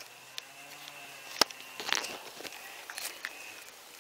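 Scattered light clicks and rustling of handling noise as a dog moves right up against the camera, with one sharper click about a second and a half in.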